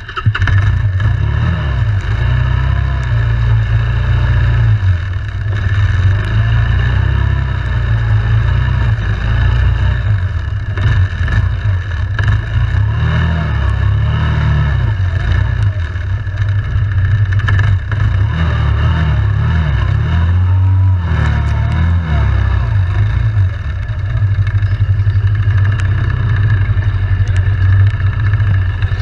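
ATV engine running under way, its revs rising and falling as the machine rides along, easing off briefly about two-thirds of the way through.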